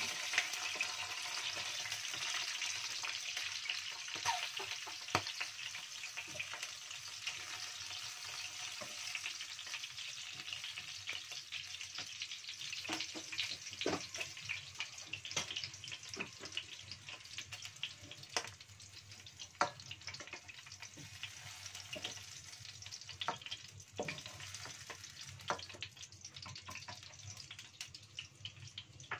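Sliced chillies sizzling in hot oil in a wok: a steady frying hiss with scattered sharp crackles, slowly fading toward the end.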